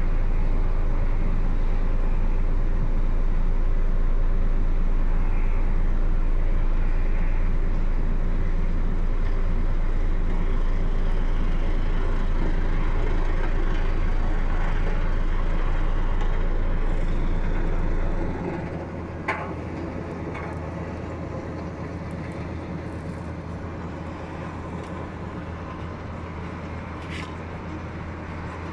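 Ammann single-drum vibratory roller's diesel engine running while compacting, with a steady deep hum. About two-thirds of the way through, the deep hum stops abruptly and the sound drops, typical of the drum vibration being switched off, leaving the engine running more quietly.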